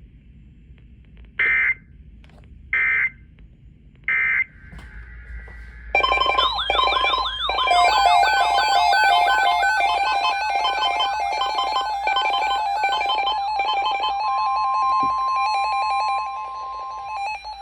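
Three short bursts of EAS digital data tones, the end-of-message code that closes an alert. About six seconds in, loud synthesized electronic music starts, with rapid sweeping chirps repeating a few times a second over held tones.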